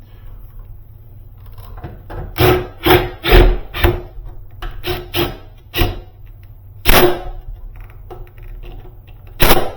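A run of about ten sharp metallic knocks at uneven intervals, several of them leaving a short ringing tone, as parts of a door closer are struck or fitted against a hollow metal door. The knocks bunch between about two and six seconds in, with one more around seven seconds and a loud one near the end.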